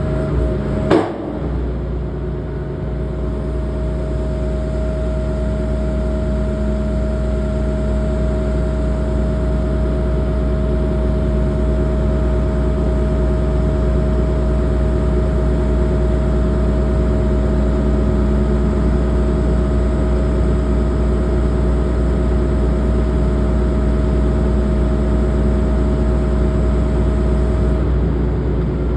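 Hitachi excavator's diesel engine running steadily under work, with a steady whine over it and a single sharp knock about a second in.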